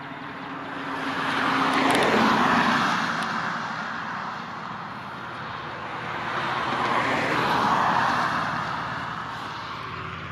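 Two vehicles passing by on the road one after the other, each a swell of engine and tyre noise that rises and fades, loudest about two seconds in and again about eight seconds in.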